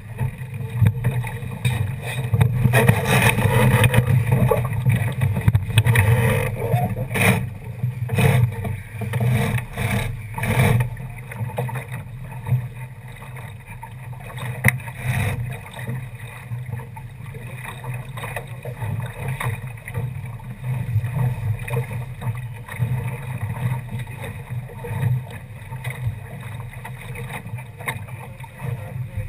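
Water rushing and slapping along the hull of a Mercury class sailboat under sail, with wind rumbling on the microphone. It is louder and choppier, with several sharp splashes, in roughly the first ten seconds, then settles to a steadier rush.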